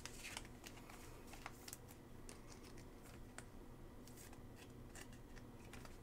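Near silence, with faint, scattered clicks of trading cards being handled.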